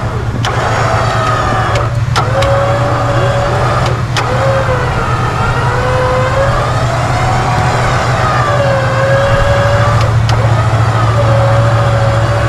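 Vehicle engines running steadily under a wavering whine that rises and falls and breaks off now and then, with a few sharp clicks, as an SUV stuck in a snowy ditch is pulled out on a tow line.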